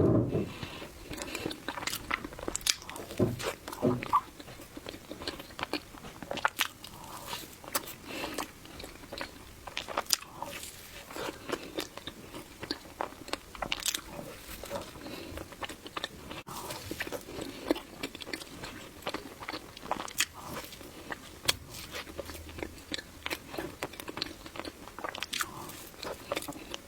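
Close-miked eating sounds of a person chewing matcha mille crepe cake, with many short, irregular mouth clicks and smacks.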